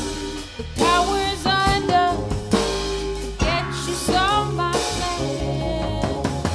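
Live band music: a voice singing a wavering, sliding melody over sousaphone, mallet-keyboard percussion, upright bass and drum kit.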